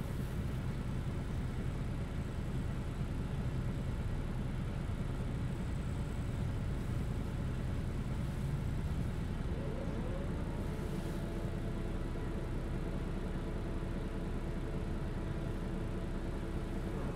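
Inside a MAN NÜ283 low-floor bus on the move: a steady low diesel-engine rumble. About halfway through, a whine rises and then holds steady as the bus picks up speed.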